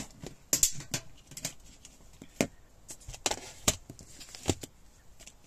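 Small objects being handled and set down on a tabletop: irregular sharp clicks and light knocks, a few each second.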